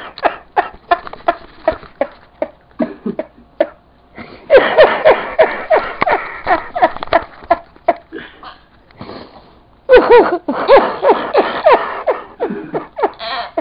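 A person laughing in fits: quick breathy snickers at first, then two louder bouts of laughter, about four seconds and about ten seconds in.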